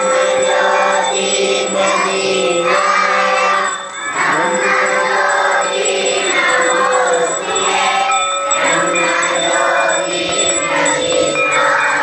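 Devotional song sung by several voices together over a steady musical accompaniment, with held drone-like tones underneath.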